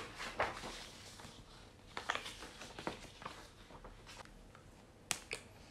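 Glossy paper leaflets rustling faintly as they are handled and turned over, in scattered soft crinkles and ticks, with a sharper crackle about five seconds in.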